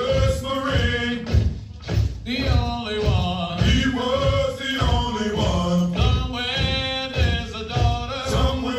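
Male voices singing a Marine Corps hiking cadence, a marching chant over a steady beat of about two pulses a second.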